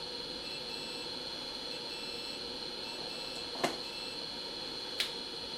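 Steady low background hum with a faint high-pitched electrical whine, and two small sharp clicks about three and a half and five seconds in.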